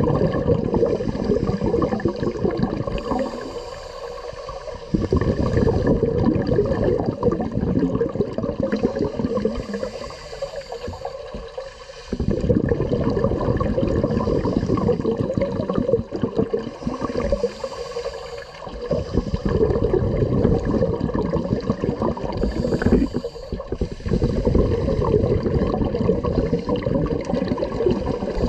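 Scuba regulator breathing heard underwater: long stretches of bubbling exhaust alternate with shorter hissing inhalations, about four breaths in the span.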